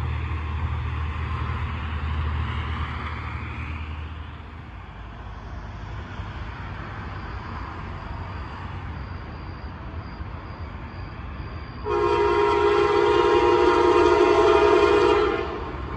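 Commuter train horn sounding one long chord of several notes, about three and a half seconds long, starting near the end, as the train approaches. A low rumble fades out about four seconds in.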